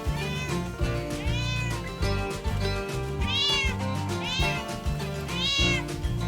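Domestic cat meowing repeatedly, a run of short rise-and-fall meows about once a second, over background music.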